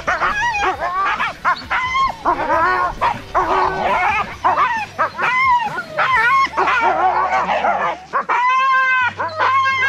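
Siberian huskies in harness whining, yipping and howling in quick succession, worked up and eager to run. Near the end come two longer, steadier howls.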